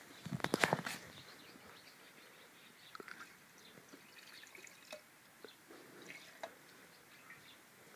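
Cider being poured from a glass bottle into a smaller glass bottle, a faint trickle with scattered drips, and a few loud glass knocks about half a second in.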